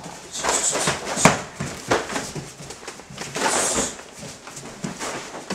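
Full-contact karate sparring: several sharp thuds of punches and kicks landing, mostly in the first two seconds, with two short bursts of hiss.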